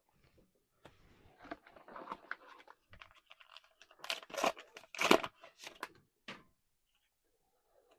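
A trading-card booster pack wrapper crinkling as it is handled, then torn open with a few sharp rips about four to five seconds in, and a last short rip a second later.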